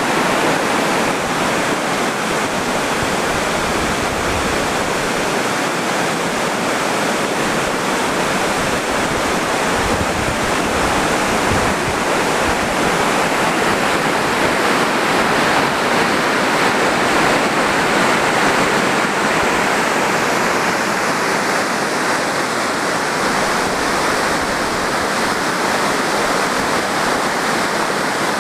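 Steady rush of river water pouring over a lock and dam, a constant loud roar with faint low buffets of wind on the microphone.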